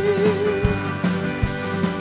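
Live rock band playing: a steady kick-drum beat under guitar and keyboard chords, with one long held note wavering slightly.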